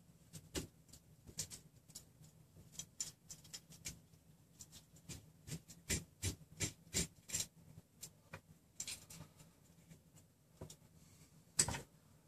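Small irregular clicks and ticks of steel hex nuts being turned by hand on the threaded rods of a RepRap Prusa Mendel printer frame as the frame is tightened, with a sharper knock near the end.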